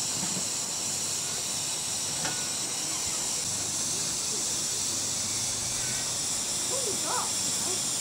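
Steady hiss of steam escaping from a scale Fowler Super BA live-steam ploughing engine, high-pitched and even, with no exhaust beat.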